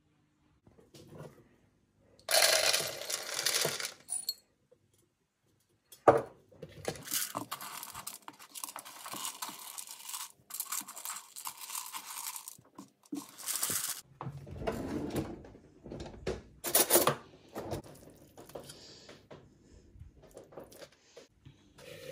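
Dry dog kibble rattling as it is poured into a hard plastic slow-feeder bowl, a loud clatter about two seconds in, then pellets rustling and clicking as a hand spreads them around the bowl. Later, duller handling sounds as cooked rice, carrot and chicken are transferred from a steel pot into the bowl.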